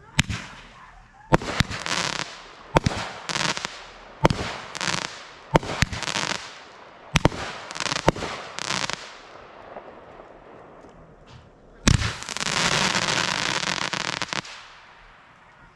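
24-shot 500-gram consumer fireworks cake firing: about a dozen shots in quick succession, each a sharp crack followed by a short noisy burst from the breaking effect. After a lull of a few seconds comes one loud shot whose burst lasts about two and a half seconds.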